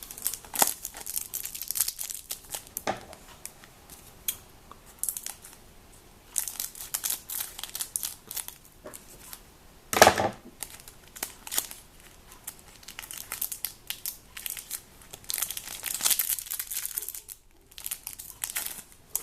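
Wrappers of trading-card packets crinkling and tearing as the packets are opened by hand and with scissors, in an irregular run of rustles and crackles. One sharp knock about halfway through.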